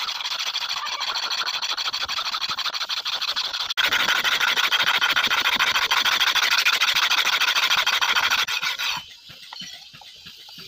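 Flat hand file rasping in quick back-and-forth strokes across the edge of a forged steel billhook blade, sharpening it. The filing gets louder about four seconds in and stops about nine seconds in.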